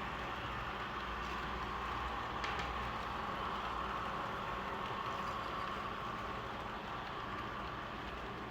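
Model passenger train running on a layout: steady rolling noise of wheels on the track under the locomotive's sound-decoder diesel engine, slowly fading, with a single click about two and a half seconds in.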